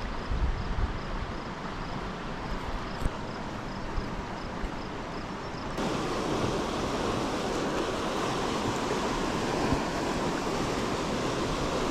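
Creek water running as a steady rush, with wind gusting on the microphone in the first few seconds. About six seconds in, the rush turns suddenly louder and fuller.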